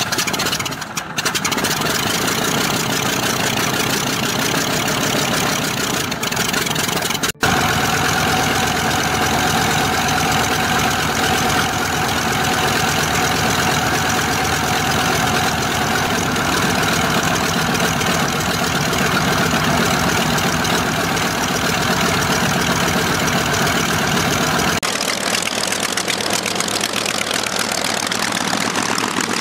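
Nakajima Sakae 14-cylinder radial engine of a Mitsubishi A6M Zero running steadily on the ground. There is a brief dropout about seven seconds in, and about 25 seconds in the sound changes abruptly to another recording of the engine.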